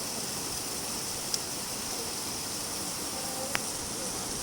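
Steady rain falling, an even hiss, with two single sharp ticks, one about a second and a half in and one near three and a half seconds.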